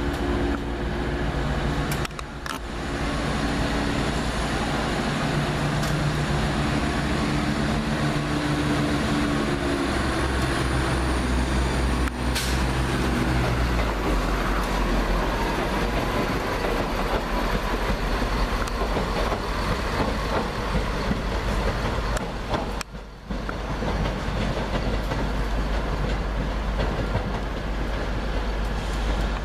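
Diesel engines of a CrossCountry Voyager multiple unit running with a steady hum as the train moves through the station. About fourteen seconds in, the engine tones drop away and leave the rumble of the train rolling past and away.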